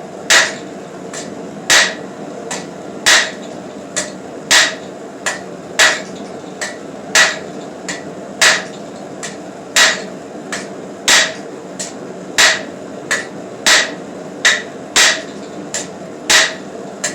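Blacksmith's hand hammer striking hot steel on an anvil in hard, even blows, about one every second and a third, drawing the bar out into a taper. Each heavy blow rings and is followed by a lighter tap.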